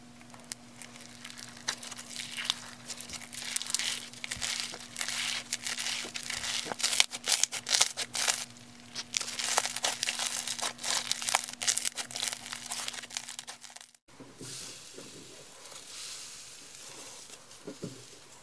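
Sprinkle-covered slime being squeezed and kneaded by hand, crackling and crinkling with dense little pops. About 14 s in it cuts to a second, green slime being pressed and pulled, much quieter and softer, with a few small sticky pops.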